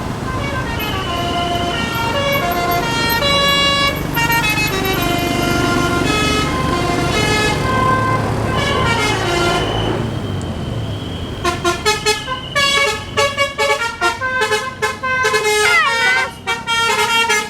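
Tour bus's multi-tone telolet horn playing a tune of stepping notes over the running bus engine. About two-thirds of the way through it switches to a fast string of short, choppy horn notes.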